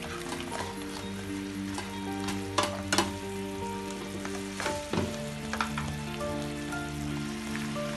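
Fried chicken pieces sizzling in a sticky soy-honey sauce in a non-stick frying pan as they are stirred and turned with a wooden spatula, which knocks against the pan several times. Soft background music of held notes plays under it.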